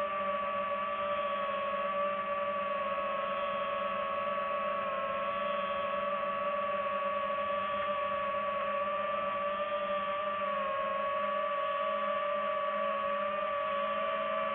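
Drone's electric motors and propellers whining steadily while it hovers and drifts, the pitch wavering a little as the motor speeds adjust.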